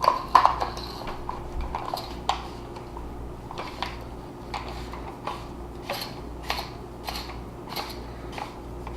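Metal parts of a Mossberg 500 12 gauge pump shotgun clicking and clinking irregularly as it is handled and reassembled, over a steady low hum.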